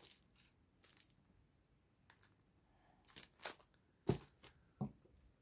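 Quiet handling of comic books: a few brief rustles and soft knocks in the second half, the loudest about four seconds in.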